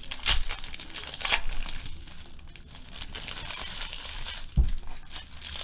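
Foil wrappers of Panini Playoff football card packs crinkling and tearing as they are ripped open and handled, with sharp crackles near the start and a dull thump about four and a half seconds in.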